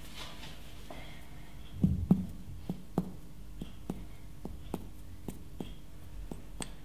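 Abdominal percussion: a finger tapping on another finger laid flat on a bare belly, giving a run of short soft knocks. They start about two seconds in, loudest at first, then come roughly three a second.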